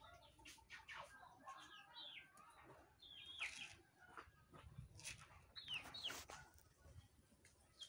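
Faint bird calls, short falling chirps every second or two, with scattered light clicks and rustles.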